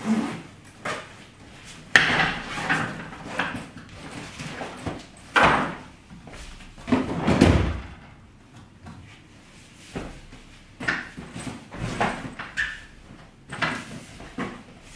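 Irregular knocks, thumps and rustling of someone packing: a duffel bag handled and set down on a wooden floor and clothes pulled out and stuffed in, with a heavier thud about seven seconds in.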